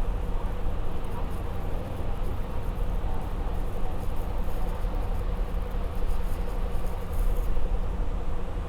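Bus interior on the move: a steady low rumble of engine and road noise through the cabin, with a faint steady hum.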